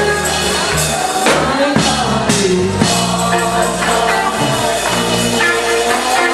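Live gospel worship music from a church band with drums and tambourine, playing on between sung lines, with some singing.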